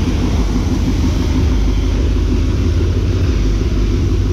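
High-pressure car-wash wand spraying a steady jet of water onto a car's wheel and wheel arch, a continuous hiss over a low rumble.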